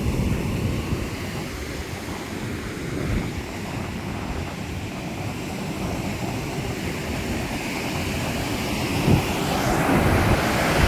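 Rough sea surf breaking and washing onto the shore in a steady rush, with wind on the microphone. The wash grows louder about nine seconds in.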